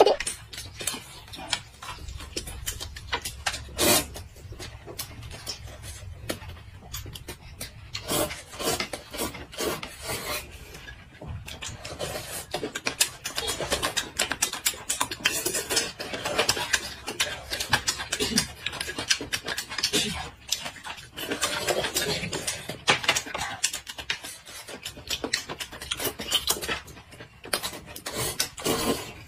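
Two people eating: chewing and slurping rice noodles, with many small irregular clicks and crackles of mouth noises, chopsticks, and a spoon against the dishes.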